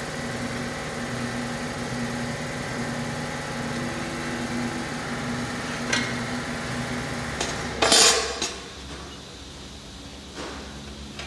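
Metal clanks from tools and parts against a jet-ski engine block during assembly: a short click about six seconds in, then a loud clatter about eight seconds in. A steady machine hum sounds beneath it and drops away just before the clatter.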